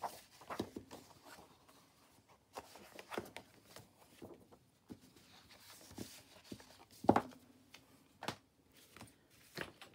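Pages of a large old book being turned by hand, with scattered paper rustles and soft clicks, and one louder thump about seven seconds in as the book is shut and taken away.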